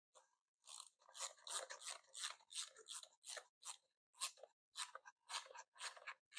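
Ratchet screwdriver clicking as its handle swings back and forth to drive a Phillips screw: a steady run of faint, short clicks about two to three a second.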